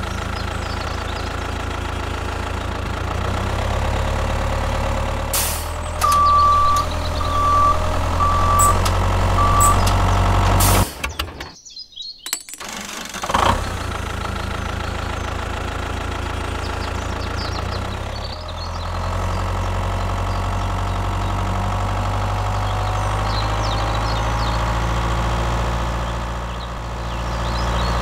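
Tractor engine running steadily at idle, cutting out for about two seconds near the middle, then running on. Four short high beeps, about a second apart, sound over it early in the first half.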